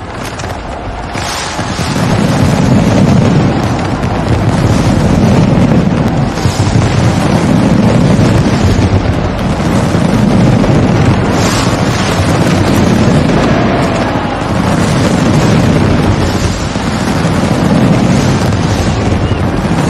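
Massed aerial fireworks bursting without pause, many booms running together into one continuous din that swells and eases every few seconds.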